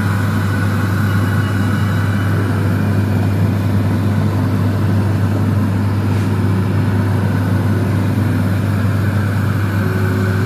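Steady low hum with an even, rough noise over it from minced beef and tomato sauce cooking in a non-stick frying pan on the stove while it is stirred; it starts and stops abruptly.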